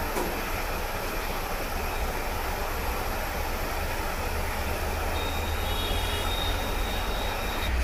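A jeweller's soldering torch flame runs with a steady rushing hiss while a silver ring is soldered onto a bangle. A faint high whistle joins about five seconds in.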